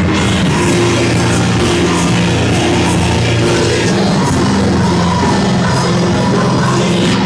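Loud rock-style music with singing: a dense, unbroken wall of sound with held low notes that change every second or so.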